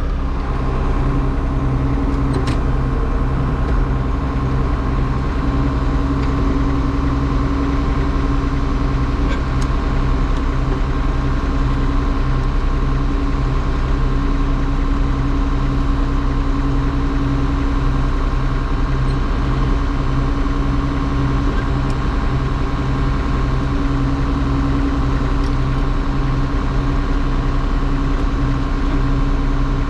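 John Deere 6620 combine's diesel engine running steadily at one constant speed.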